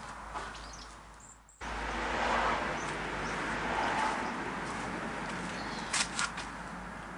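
Model marine steam engine with two double-acting cylinders, running on steam from its small brass boiler: a steady rushing hiss. The sound fades out briefly about a second and a half in, then returns louder. Two sharp clicks come near the end.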